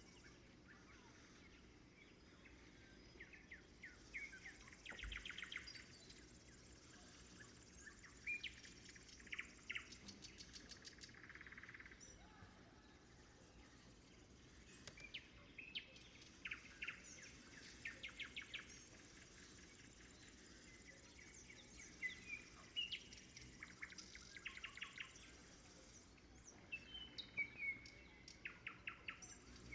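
Nightingale singing faintly: phrases of rapid, evenly repeated notes and short whistles, separated by pauses of a few seconds.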